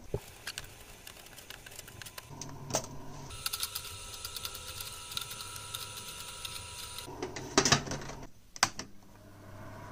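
Light clicking and clatter of circuit boards and clear plastic food-dehydrator trays being handled, ending with a burst of louder clicks as the lid is set on near the end. A steady machine hum runs for a few seconds in the middle.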